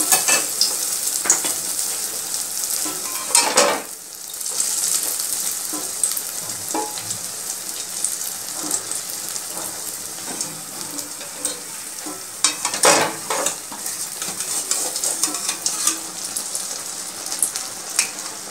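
Batter-coated bread shallow-frying in oil in a steel kadai over a low flame: a steady sizzle full of small crackling pops. Twice, about three and a half seconds in and again around thirteen seconds, the crackling briefly grows louder and denser.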